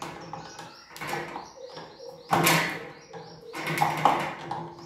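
Pliers tightening a small nut on a ceiling fan's downrod clamp: metal clicking and scraping, loudest twice in the second half. Birds chirp faintly in the background.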